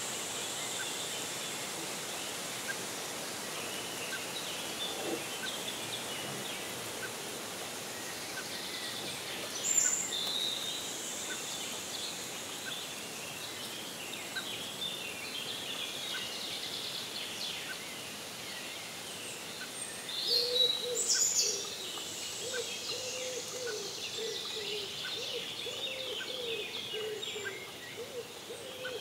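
Forest songbirds singing and calling at dawn over a steady background hiss. The calls come in short high bursts, loudest about a third of the way in and again about two-thirds in. From about two-thirds in, a low wavering call repeats underneath.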